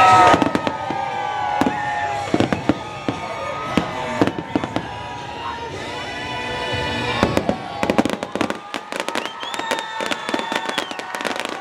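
Fireworks bursting and crackling over an orchestral show soundtrack of long held notes. The crackling grows dense and rapid from about eight seconds in.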